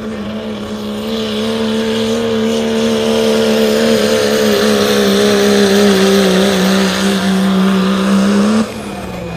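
Turbocharged diesel pickup truck engine held at high revs under full load while dragging a weight-transfer sled; the engine note stays steady, grows louder about a second in, and cuts off abruptly near the end.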